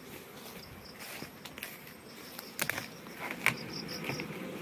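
A colony of western honeybees (Apis mellifera) buzzing steadily around an open hive, with a couple of sharp clicks about halfway through.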